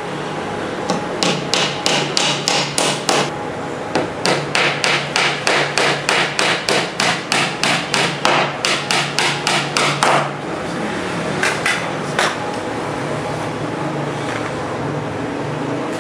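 Hammer driving small nails into the edge of a laminated particle-board shelf panel: quick blows at about three a second, in a short run and then a longer run of some six seconds, followed by two single blows.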